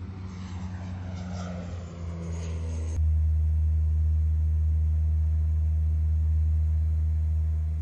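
Steady low drone of a propeller aircraft's engines, heard from inside the cabin, becoming abruptly louder about three seconds in.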